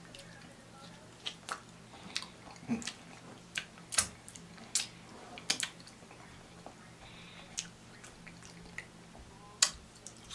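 Close-miked chewing and mouth sounds of a person eating cheese-topped buffalo ranch fries: irregular wet smacks and clicks, a sharp one about four seconds in and another near the end, over a faint steady low hum.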